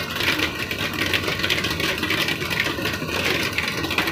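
A hailstorm with heavy rain pelting down: a dense, steady clatter of countless small impacts.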